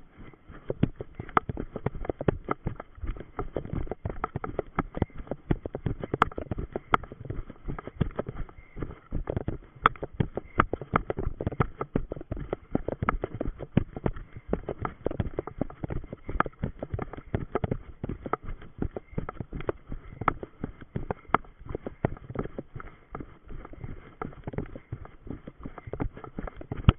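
Running footsteps of an orienteer through forest undergrowth and grass, a fast, continuous stream of thuds and knocks with brushing of vegetation, picked up by a body-worn camera that is jostled with every stride.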